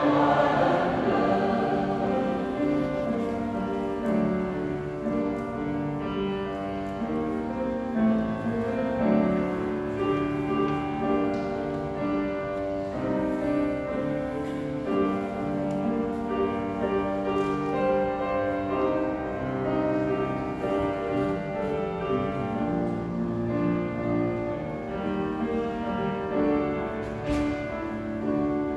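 Mixed church choir singing a hymn with piano accompaniment, loud at first and then settling into a softer passage.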